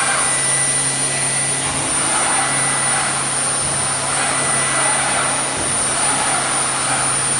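A CNC carving machine running: steady machine noise with a constant high whine and a low hum, rising and falling a little every second or two.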